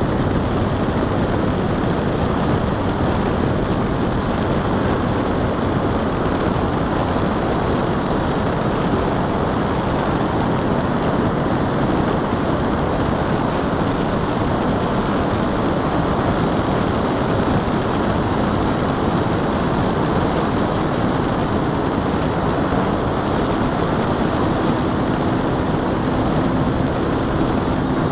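Steady rush of airflow and propeller noise from an FPV model aircraft in flight, as picked up by its onboard camera's microphone. A faint steady hum comes in near the end.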